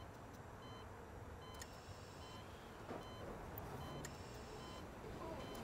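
Faint steady low rumble of distant traffic, with a few faint short high beeps.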